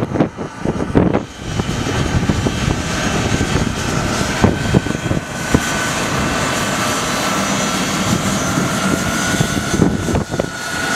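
Boeing C-17 Globemaster III's four Pratt & Whitney F117 turbofan engines running as the jet taxis past: a steady jet rush with a high whine that dips slightly in pitch near the end.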